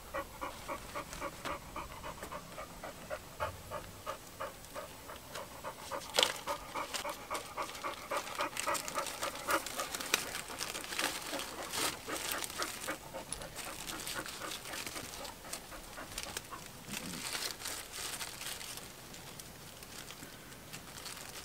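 Quick, rhythmic panting, like a dog's, close to the microphone. About six seconds in, sharp clicks and plastic crinkling join it as small plastic bags are worked over the hydraulic fitting ends.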